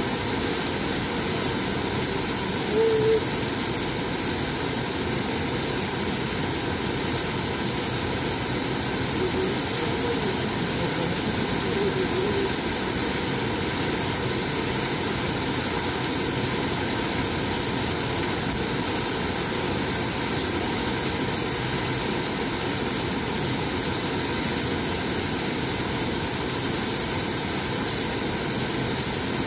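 Waterfall: water pouring onto rocks with a steady, unbroken rushing noise.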